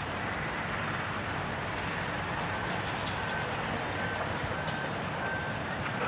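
A vehicle's reversing alarm beeping, five short beeps on one high pitch about 0.7 s apart, starting about two and a half seconds in, over steady vehicle noise.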